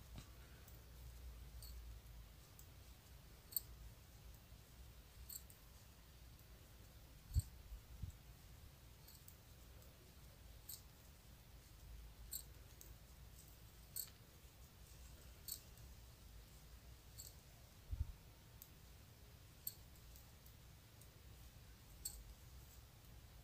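Faint, irregular clicks of knitting needles touching as stitches are purled, roughly one every one to two seconds, with a few soft low bumps from handling.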